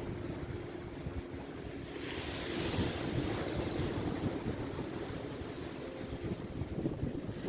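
Sea waves washing onto the beach, with a wave surging in about two seconds in. Wind rumbles on the microphone, and a faint steady hum sits underneath.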